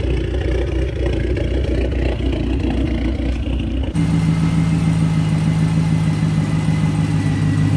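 A Dodge SRT-4's turbocharged four-cylinder idling with a low steady rumble. About four seconds in it switches suddenly to a Ram 1500's Hemi V8 idling steadily at the tailpipe, still on its stock exhaust manifolds.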